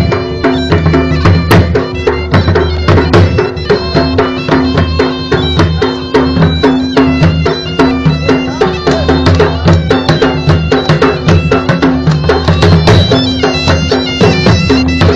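Live folk dance music: a large dhol drum beating a fast, steady rhythm under a reed wind instrument playing a sustained melody.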